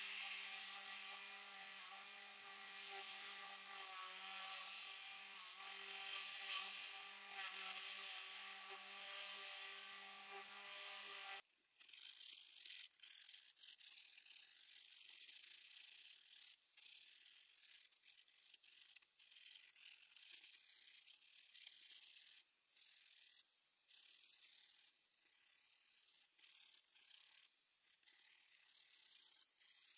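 Handheld electric power tool running steadily with a constant pitch as it is worked over a maple slab, cutting off abruptly about eleven seconds in. It is followed by quieter, irregular scratching strokes of sandpaper rubbed by hand along the slab's edge.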